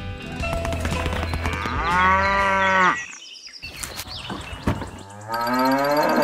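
Cattle mooing twice: one long moo about two seconds in and a second near the end.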